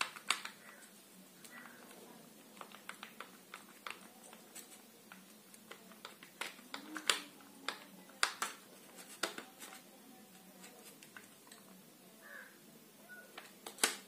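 Irregular light clicks and knocks of a Crompton table fan motor's metal housing and plastic fittings being handled and worked apart by hand, the end cover coming off the stator with its screws removed; a few louder knocks fall around the middle.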